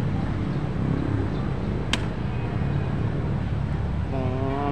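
Steady low rumble of road traffic, with one sharp click about two seconds in as a plastic bottle-cap draughts piece is set down on the board. Near the end a steady pitched tone with several overtones begins.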